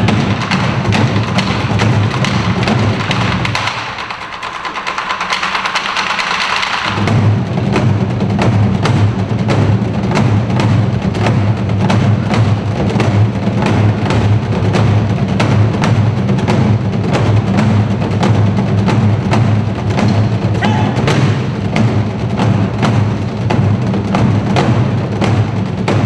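Korean traditional drum ensemble of janggu hourglass drums playing a fast, driving rhythm in unison. About four seconds in the deep strokes drop out for roughly three seconds, leaving a lighter, rattling texture, before the full rhythm comes back in.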